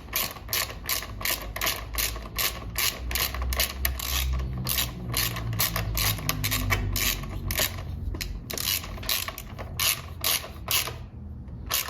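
Hand ratchet wrench with a 12mm socket clicking in a quick, steady run of several clicks a second as the mounting bolts are tightened down; the clicking stops near the end.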